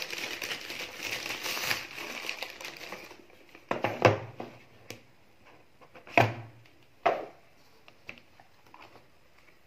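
White plastic courier mailer bag crinkling and crumpling as it is handled, for about three seconds. Then four sharp knocks, loudest about four and six seconds in, as the phone box is put down and moved on the tabletop, with a few small clicks.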